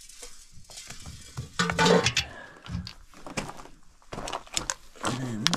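Handling noise of an old tin motor-oil can, with scattered clinks and scrapes and a louder clunk about two seconds in. Footsteps crunch over loose rock.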